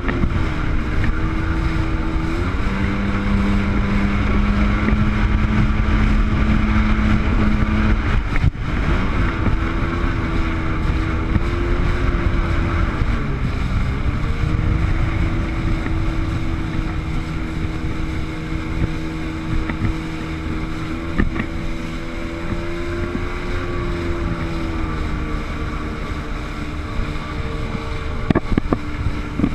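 Sea-Doo jet ski engine running under way, its pitch shifting with the throttle: rising about two seconds in, dropping off briefly about eight seconds in and again around thirteen seconds, then holding steady. Wind buffets the chest-mounted microphone, and a few sharp knocks come near the end.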